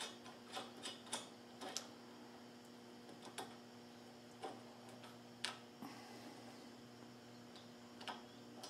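Faint, scattered light metallic clicks of small washers and nuts being handled and threaded onto bolts in a metal mounting block. The clicks come several in the first two seconds, then a few spaced out, over a steady low hum.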